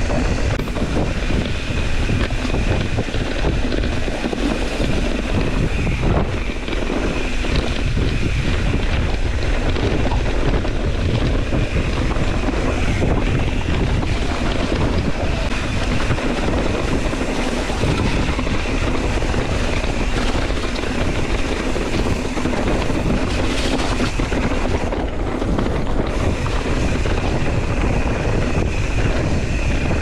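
Wind rushing over the camera microphone as a mountain bike descends a leaf-covered dirt trail at speed, with tyre and bike rattle underneath. A steady high hum runs through it and drops out briefly late on.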